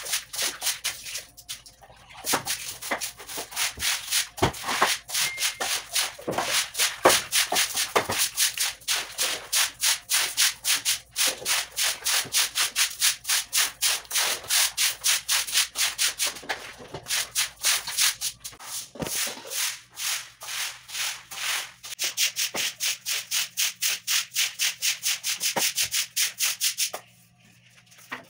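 Stiff broom scrubbing a wet, soapy floor in quick, even strokes, about four a second, with a short pause about two seconds in; the scrubbing stops just before the end.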